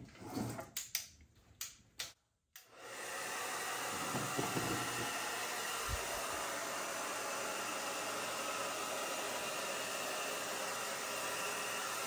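A handheld hair dryer starts about two and a half seconds in and runs steadily, blowing a constant hiss of air, after a few short handling knocks.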